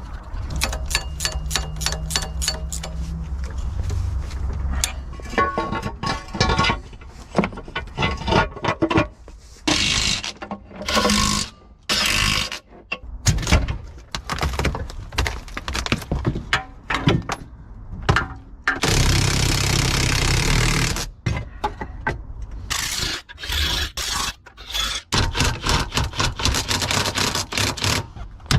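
A run of workshop sounds from work on a boat engine: metal tools and parts clicking, knocking and scraping, with a low hum in the first few seconds and several short bursts of rushing noise, the longest about two-thirds of the way through.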